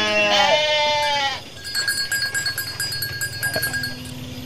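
Garut sheep bleating: one long, wavering bleat lasting about a second and a half. It is followed by a faint steady high whine.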